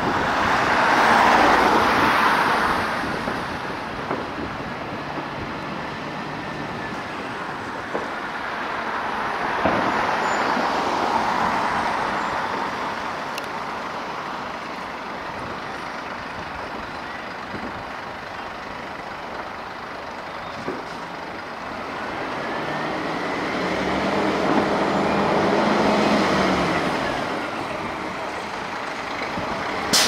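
Road traffic noise that swells and fades as vehicles pass, three times, with a fire truck's engine running as the aerial ladder truck pulls out of the station.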